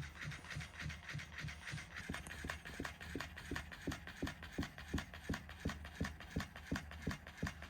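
Battery-powered tanuki cat toy running: its small motor hums steadily under a regular mechanical clicking of about four to five clicks a second.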